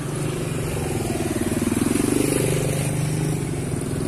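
Motorcycle engine running at low speed close by, growing louder about halfway through as it passes, over a steady engine hum.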